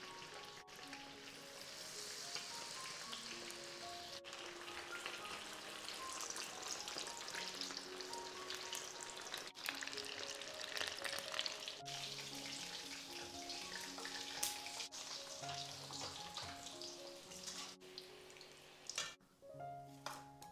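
Corn fritter batter deep-frying in hot oil in a wok: a steady crackling sizzle. Under it runs background music, a simple melody of held notes. The sizzle drops away near the end, leaving only the music.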